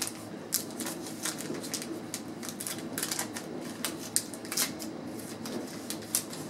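1988 Fleer baseball cards being handled and flipped through by hand: irregular crisp clicks and rustles of stiff cardboard, about two a second.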